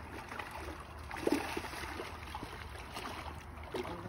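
Steady low wash of water along a rocky shoreline, with a few faint knocks and clicks.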